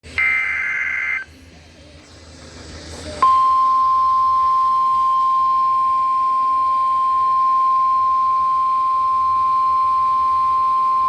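NOAA Weather Radio Emergency Alert System signal from a weather radio receiver. It begins with a one-second buzzy warble of SAME digital header data and a pause of about two seconds with faint hiss. Then, about three seconds in, the steady single-pitch 1050 Hz warning alarm tone starts, which marks a warning-level alert.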